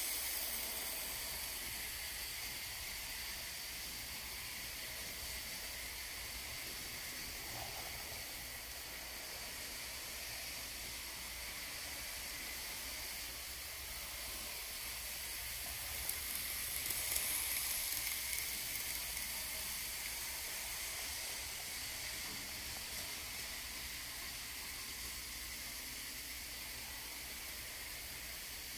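N scale PA and PB model diesel locomotives running on the track: a faint, steady whir and hiss from the small motors and wheels, louder as the train passes close at the start and swelling briefly a little past halfway.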